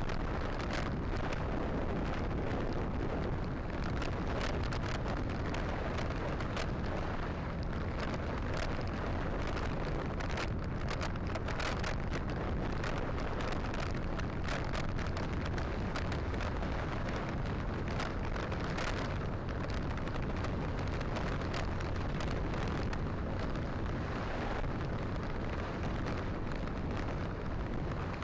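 Motorcycles riding on a rough dirt track: a steady engine rumble under wind noise on the microphone, with a rapid, uneven scatter of clicks and knocks from the corrugated surface.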